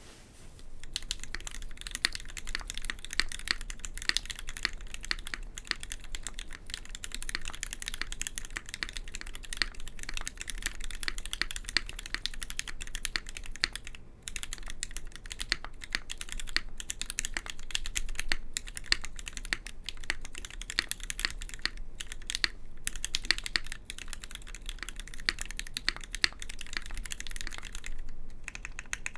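Typing on a Duck Viper v3 mechanical keyboard with lubed Gateron Black linear switches fitted with Cherry MX tops, Space Cadet II keycaps and an internal stainless steel weight: a steady run of keystrokes with a few short pauses.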